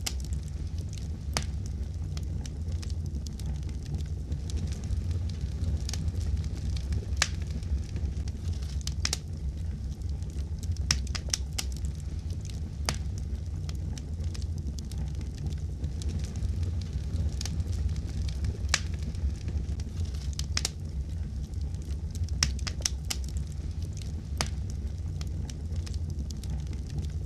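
Fireplace fire crackling: a steady low rumble of flames with scattered sharp pops and snaps throughout.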